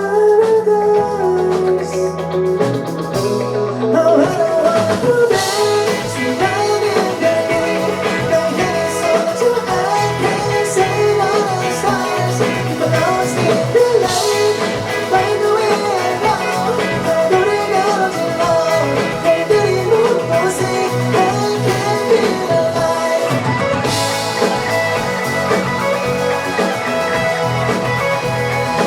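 Live band music in an instrumental passage between sung verses, with guitar prominent.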